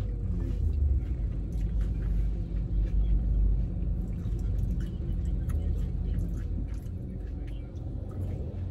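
Steady low rumble inside a stationary car's cabin, with faint small clicks and rustles of a hard-shell taco and sauce cup being handled.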